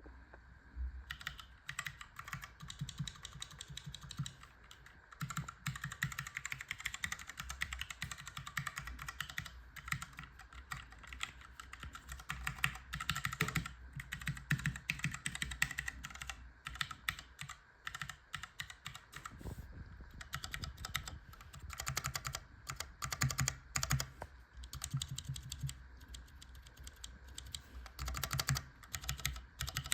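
A Cherry MX Clear mechanical keyboard switch, mounted on a steel plate in a bamboo wooden case, pressed over and over in quick, uneven runs of clacks.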